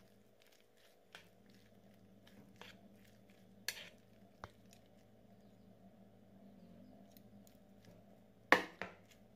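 Chopsticks clicking and scraping against a plastic plate while stirring spice-marinated goat meat: faint scattered clicks, with a sharper knock near the end.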